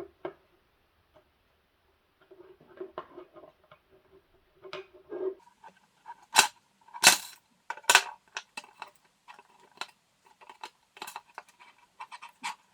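Rustling, then a series of sharp clicks and snaps from hands working a power cord and its plug parts. The loudest snaps come in a cluster about six to eight seconds in.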